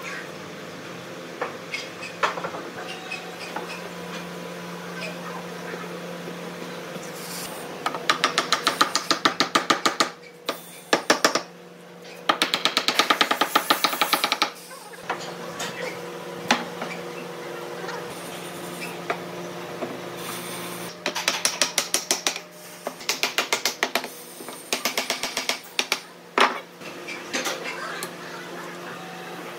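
One-handed trigger bar clamps being ratcheted tight on a glued wooden table frame: several runs of rapid, evenly spaced clicks, each lasting a second or two, over a steady low hum.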